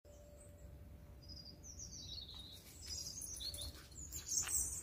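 Small birds chirping and singing in the trees, short high falling notes that come more often and grow louder toward the end.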